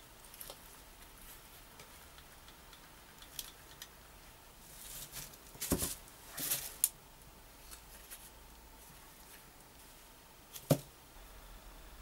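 Quiet handling of small tools and plastic parts on a bench covered in bubble wrap: scattered light clicks and rustling, with two sharp knocks, one about halfway through and one near the end.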